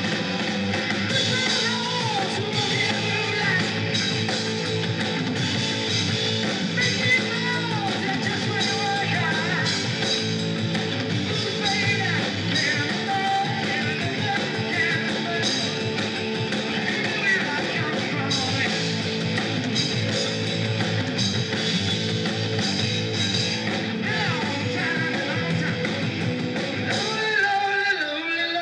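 Live rock band playing: distorted electric guitar, bass and drums, with a man singing into a microphone.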